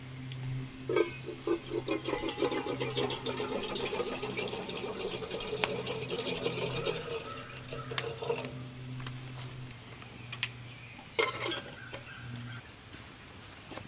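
Water boiling in an open metal kettle over a fire: a rapid bubbling and rattling that swells about a second in and dies down after about eight seconds. Near the end a sharp metal clank as the kettle's lid is set on.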